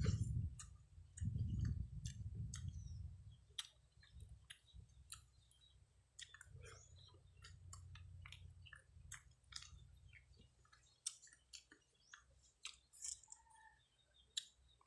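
A person chewing food close to the microphone, with many small wet mouth clicks and lip smacks, over a low rumble that comes and goes.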